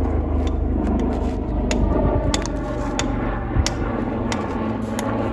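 An engine running steadily, its low note shifting about four seconds in, with sharp irregular taps over it, about one or two a second, from a hammer striking stone.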